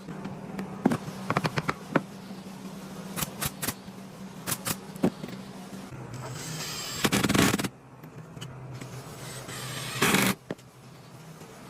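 Woodworking on timber: a scatter of sharp knocks and taps on wood, then a longer scraping stroke that grows louder, and a shorter one near the end.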